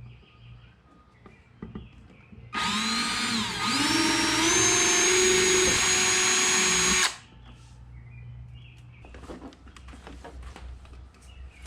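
Power drill boring a hole sized for fish-finder wiring. The motor whine climbs in pitch partway through, holds steady for a few seconds, then cuts off abruptly.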